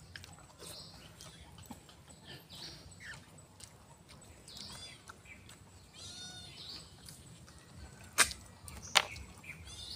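Faint eating sounds as snails are picked from their shells by hand and sucked out: short slurps and mouth noises, with two sharp clicks about a second apart near the end.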